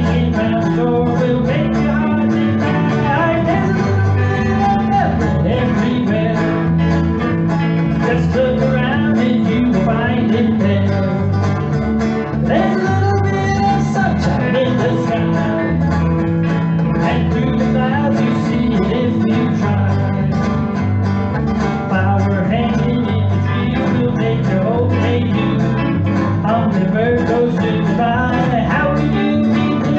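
A small band playing a gospel song live: acoustic rhythm guitar, electric lead guitar and electric bass, with a man singing lead.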